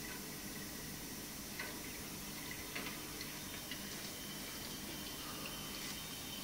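Aerosol spray paint can hissing while it paints the side of a freight wagon, with a few faint clicks, over a steady low hum.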